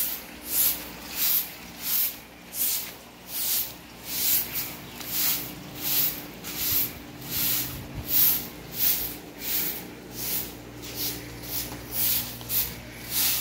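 Rhythmic swishing of a cloth being rubbed over furniture during dusting, about one and a half strokes a second, with a faint steady hum underneath.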